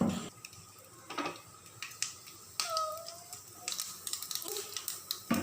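Mustard seeds and urad dal spluttering in hot oil during tempering: scattered sharp pops and crackles.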